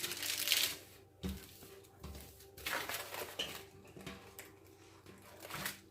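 Several short bouts of rustling and brushing as a diamond painting canvas is handled.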